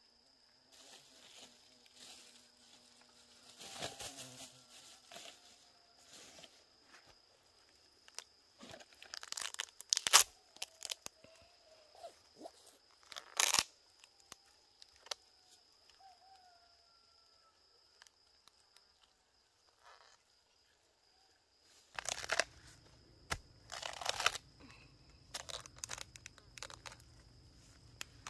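Fibrous rotting palm trunk being torn and broken apart by hand: irregular bursts of tearing and crunching, with quieter gaps between pulls and a cluster of them near the end.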